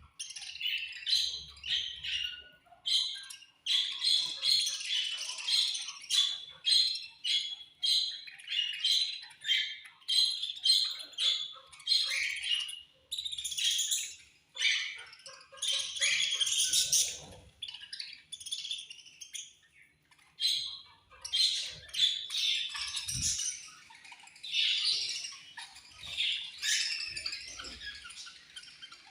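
Budgerigars chirping and chattering: many short, rapid, overlapping calls that run on almost without a break.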